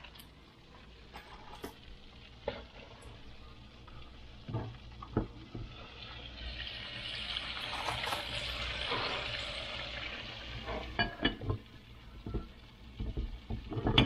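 Battered fish nuggets deep-frying in hot oil in a pot: a steady sizzle that swells about halfway through and fades near the end. Scattered knocks and clicks of kitchen handling sound throughout.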